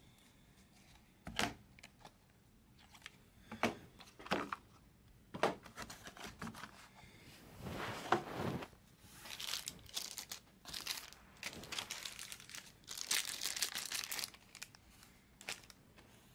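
Plastic wrap crinkling and tearing as a trading card box is opened, mixed with scattered sharp clicks and taps of hard plastic card cases being handled.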